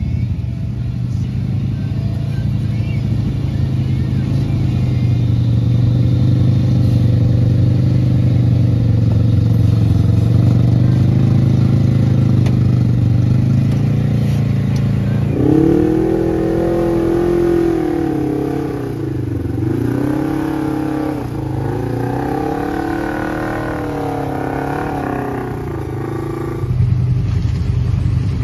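Lifted side-by-side UTV's engine running at a steady low drone, then from about halfway through revving up and falling back several times as the machine works through a mud hole.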